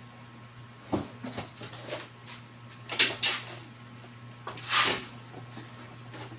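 A few sharp clicks and knocks of tools and parts being handled on an electronics repair bench. The loudest come about three seconds in, with a longer scraping clatter near five seconds, all over a steady low hum.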